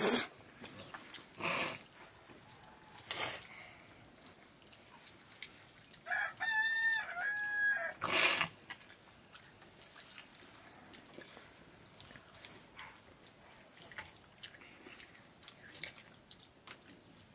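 A rooster crows once, about six seconds in: one pitched call of about two seconds in several steps. A few short knocks come before and after it, the loudest at the very start.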